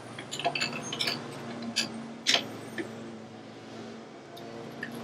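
Scattered sharp metallic clinks and ticks of hand tools and brake-caliper hardware as a front brake caliper is refitted, several in the first two seconds and fewer after, over a steady low hum.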